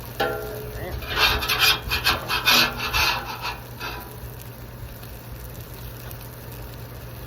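Metal spatula scraping across a Blackstone griddle's steel cooktop in a quick run of rasping strokes, about a second to four seconds in, opening with a brief metallic ring. A steady low hum runs underneath.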